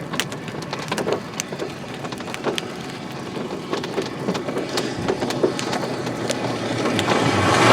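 Rain falling, with irregular sharp ticks of drops striking close by over a steady patter, building louder near the end.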